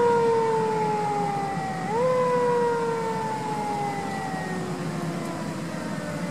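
Siren of a 2016 E-One Cyclone II fire engine on an emergency response, its pitch jumping up quickly and then sliding slowly down, twice, about two seconds apart. It grows fainter as the engine drives away, over a low rumble.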